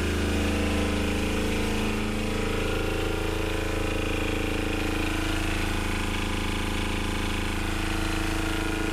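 Fischer Panda marine diesel generator running steadily at constant speed, a low, even drone.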